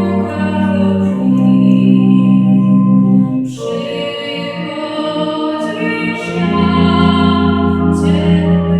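A woman singing a slow song, accompanied by sustained organ chords, with a change of chord about three and a half seconds in.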